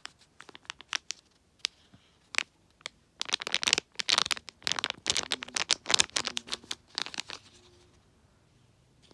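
Thin clear plastic packet crinkling and crackling as fingers handle it and squeeze the squishy toy inside it. The crinkles come in irregular bursts, thickest in the middle, and die away near the end.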